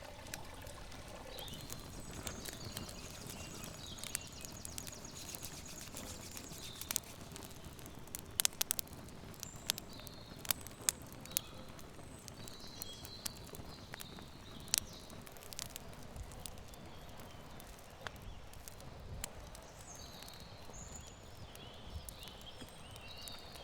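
Birds chirping in short calls and a brief trill, over scattered sharp clicks and taps that cluster around the middle, against a steady low outdoor background.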